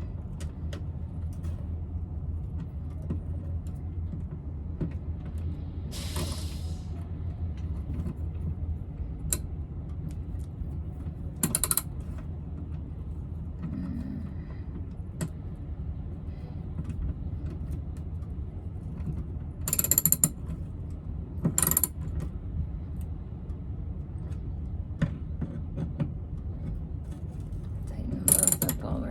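Hand tools tightening a stuck screw on a generator fitting: scattered clicks and ratcheting, with a few louder metal knocks near the middle and end, over a steady low hum.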